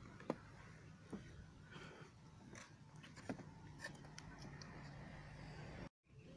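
Faint steady background noise on a homemade raft on open water, broken by three sharp clicks in the first three and a half seconds. There is a brief dead-silent dropout near the end.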